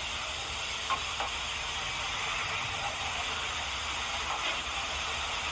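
Steady hiss of a noisy audio recording, like static, with two faint clicks about a second in.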